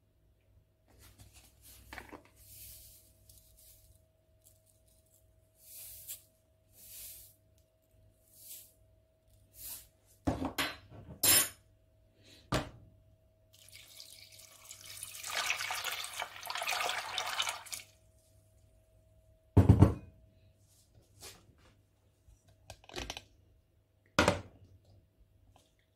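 Salt shaken in short bursts from a cardboard salt drum into a stainless steel pot of peas, then sharp metal knocks from the pot. Water runs into the pot for about four seconds, and the filled pot clanks down onto a glass-ceramic hob twice near the end.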